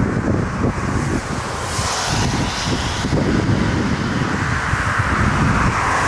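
Airbus A380's four jet engines on a wet runway during the landing rollout: a broad rushing noise over a heavy rumble that builds over the last few seconds. Gusty wind buffets the microphone.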